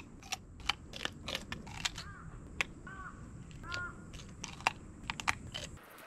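Scattered sharp clicks and taps, with a bird giving a few short calls about two, three and nearly four seconds in.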